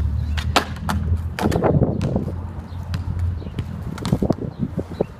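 Skateboard wheels rolling over a hard court surface with a low rumble, broken by a run of sharp wooden clacks and knocks of the board being popped, landing and hitting the ground.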